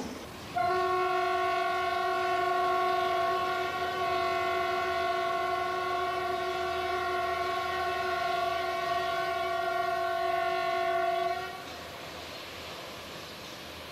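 Locomotive horn sounding one long, steady blast of about eleven seconds on a single pitch, which then cuts off, leaving the steady noise of the train running.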